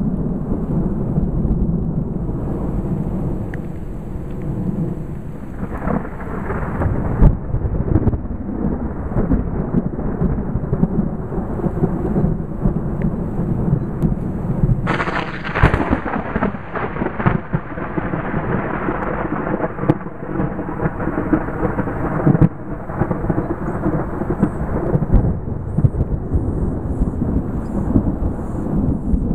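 Thunder rumbling and rolling continuously, with a sharper, brighter crack about halfway through that trails off into a long rumble.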